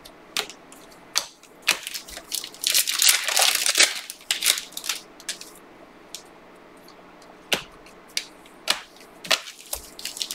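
Trading cards and their plastic being handled: crinkling rustles and sharp clicks as cards slide and snap against each other, densest about three seconds in, then scattered clicks.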